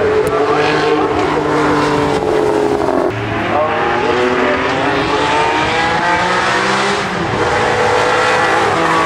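Porsche 906 Carrera 6 race cars' two-litre flat-six engines running hard on track, the engine note climbing and falling through gear changes. About three seconds in, the sound shifts abruptly to a different car.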